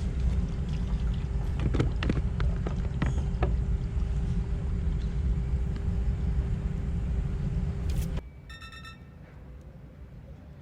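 Low, steady rumbling noise, typical of wind on the microphone outdoors, with a faint steady hum and a few light clicks. About eight seconds in it drops away sharply, leaving only a faint, quick pulsing tone.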